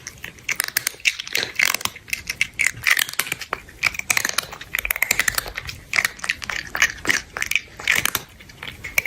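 Someone chewing crunchy food: a dense, irregular run of sharp crunches and crackles, several a second.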